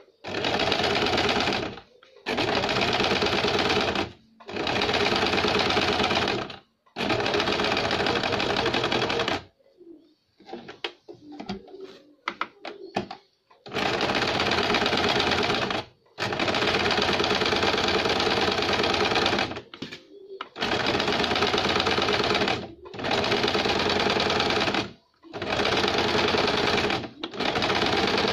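Small portable electric sewing machine stitching a double row of stitches along a blouse neckline, running in stop-start runs of about two seconds each. In a longer pause about ten to thirteen seconds in there are only light clicks and rustling.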